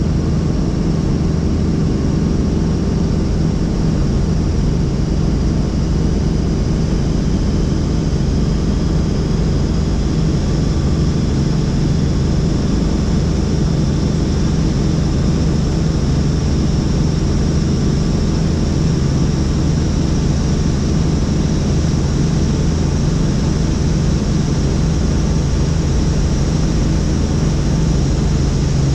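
Helicopter in steady flight: a constant drone of rotor and engine noise that holds an even pitch and level throughout.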